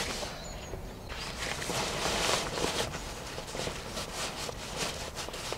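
Nylon fabric of a folded one-touch tent rustling and scraping as it is pushed and pulled into its canvas carry bag, in a series of swishes and crinkles.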